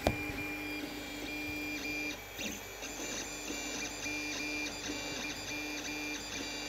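Creality CR-10S 3D printer printing: its stepper motors whine in short pitched tones that stop and change with each move of the print head, over the steady whir of its fans. A brief knock comes right at the start.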